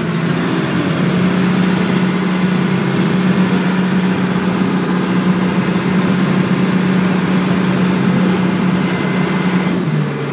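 Open passenger boat's engine running steadily under way, its pitch dropping slightly near the end.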